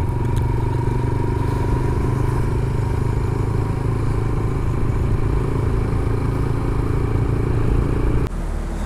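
Motorcycle engine running steadily while riding, with road and wind noise. Near the end it gives way abruptly to a quieter, different background.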